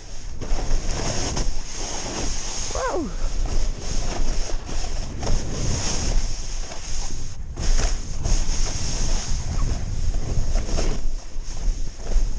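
Wind rushing over the action-camera microphone and the snowboard hissing and scraping through fresh snow during a freeride descent, the noise swelling and easing as the board turns. A short sound drops sharply in pitch about three seconds in.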